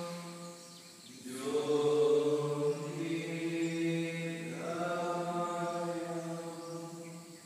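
Men's voices chanting long, steady held notes, like a mantra, during meditation. Each phrase lasts about three seconds, with short pauses for breath about a second in and near the end, and the pitch shifts at each new phrase.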